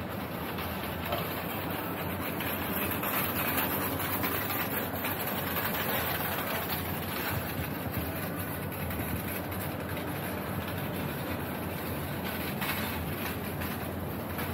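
Steady street noise with a train rumbling along its track, most likely one of Yuen Long's street-running light rail trains passing.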